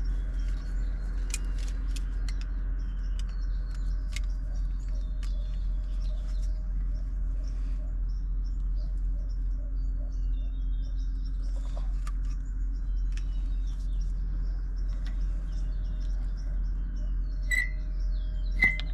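Light metal clicks and taps as new wheel studs are snugged into a hub bearing flange with pliers, with a couple of sharper clinks near the end. Under them runs a steady low hum, and small birds chirp faintly in the background.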